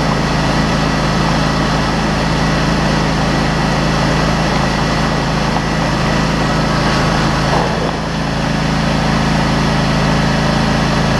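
Riding lawn mower engine running steadily while it drives, a constant low hum.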